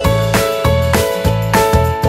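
Background music: a bright keyboard tune over a steady low beat of about three notes a second.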